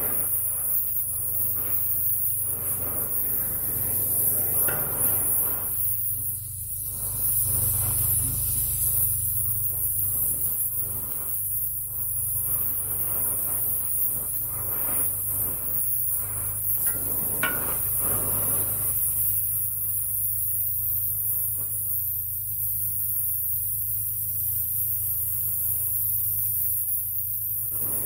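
Oxy-propane torch flame hissing steadily, set to a roughly neutral flame, as it heats a rusted steel nut.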